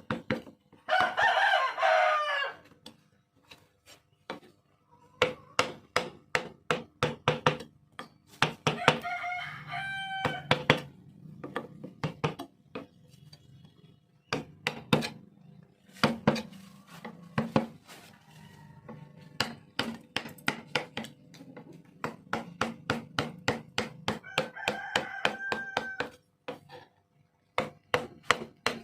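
Hammering on wood in quick runs of sharp blows. A rooster crows three times over it: near the start, about nine seconds in, and about twenty-five seconds in.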